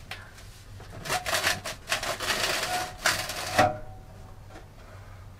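Metal stove flue pipe being twisted and worked loose from the wood burner's collar: a string of short scraping rasps and knocks, with a brief squeak just after three seconds in.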